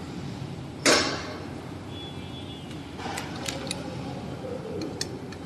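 Electric scooter's metal steering stem tube being fitted into its folding clamp: one sharp metal knock about a second in, then several light clicks and rattles as the tube is worked into place.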